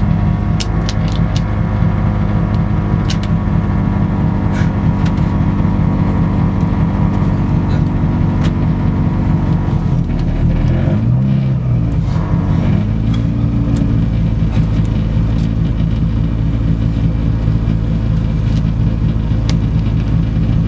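Peugeot 106 Group A rally car's engine idling, heard from inside the cabin, with one short blip of the revs rising and falling back about eleven seconds in. Light ticks and rattles from the cabin over it.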